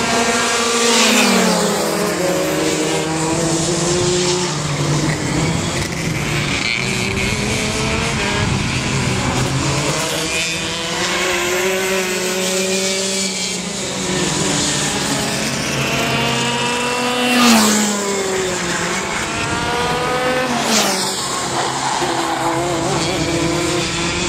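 Racing go-kart engines revving up and easing off as karts lap the circuit, with pitch rising on the straights and falling into the corners. Karts pass close by about a second in, a little past halfway (the loudest moment), and a few seconds after that, each pass with a sharp drop in pitch.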